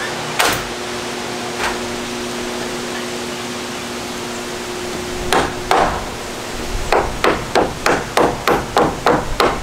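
Hammer driving nails into a wooden roof rafter: a couple of single strikes, then a fast run of about ten blows, roughly three a second, near the end.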